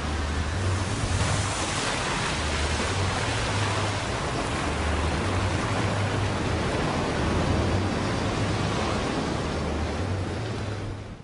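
Ocean surf washing up a sandy beach: a steady rushing hiss that swells and eases, over a low rumble.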